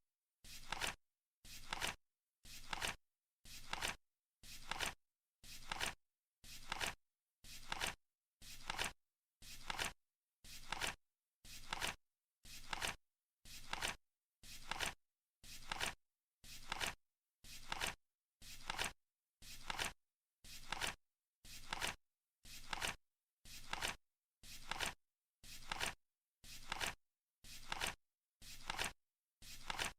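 Flip clock's seconds card flipping, once a second: each flip a short flapping clack about half a second long, with dead silence between.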